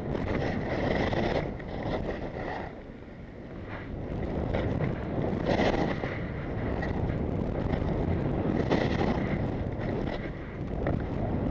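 Skis hissing and scraping over packed snow on a downhill run, surging with each turn, with wind rushing over the microphone.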